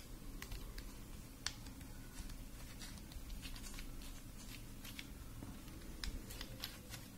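Scattered light clicks and taps of a precision screwdriver's metal handle, flexible extension shaft and bits being handled and fitted together, irregular and with several coming close together near the end.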